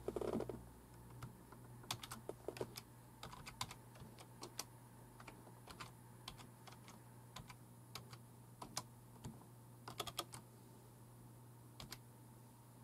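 Typing on a computer keyboard: irregular runs of key clicks, a few keystrokes at a time with pauses between, over a faint steady hum. A brief dull bump at the very start.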